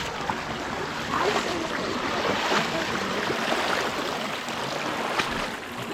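Steady rush of running water, with the faint scattered chatter of many people.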